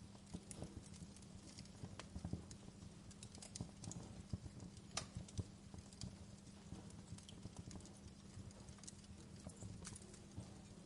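Wood fire crackling in a fireplace: irregular snaps and pops over a faint steady low hum.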